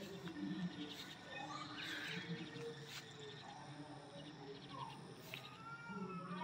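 Mixed animal and bird calls: many short, overlapping calls with higher chirps scattered among them.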